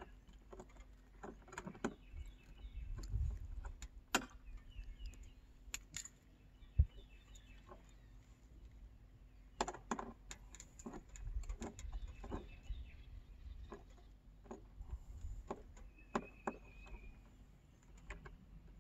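Faint, scattered light metallic clicks and taps of hardware being handled while a street-light arm's mounting bracket is fitted by hand, with one sharper click about seven seconds in. Birds chirp faintly now and then.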